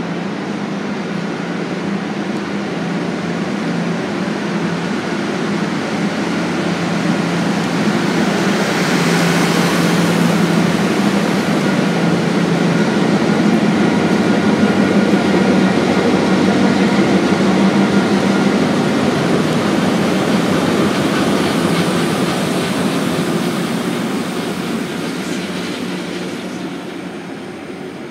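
A diesel-hauled passenger train rolling past close by: a steady rumble of wheels on rail under the low, even hum of the locomotive. It swells to its loudest about midway, as the locomotive comes by, and fades near the end as the train draws away.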